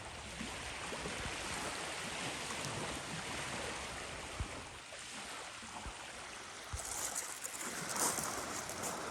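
Steady wash of moving water, with a brief louder hiss about seven to eight seconds in.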